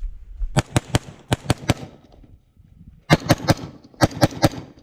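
BRN-180 semi-automatic rifle fired rapidly: a string of about seven shots in the first second and a half, then two quick strings of about five shots each near the end.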